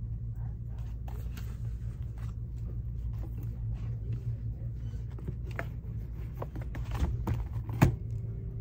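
Scattered small clicks and taps of packaged items being handled on a store shelf, with one sharper knock near the end, over a steady low hum.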